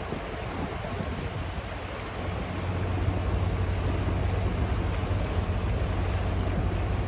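Boat engine running with a low, steady hum over the wash of water, with wind noise on the microphone; the engine grows louder about two and a half seconds in.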